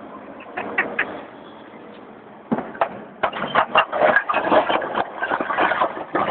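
Caterpillar 322 excavator running at a steady drone, with a few sharp knocks just under a second in, then from about halfway a fast, irregular clatter of hard knocks, typical of concrete block being ripped and tumbling down.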